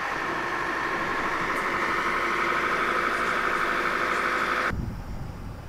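A steady mechanical drone with an even shimmer, cutting off abruptly near the end. Low wind buffeting on the microphone follows it.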